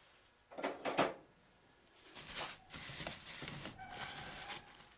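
A couple of sharp knocks of tools being handled, then steady crinkling of packing paper as the box of old hand planes and braces is dug through.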